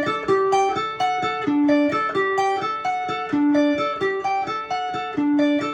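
Clean electric guitar, a Fender Stratocaster played without distortion, picking a quick single-note rock riff that repeats about every two seconds. Without distortion it sounds tinny and thin.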